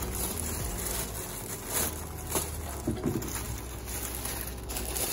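Clear plastic packaging bag rustling and crinkling as it is handled, over a steady low hum.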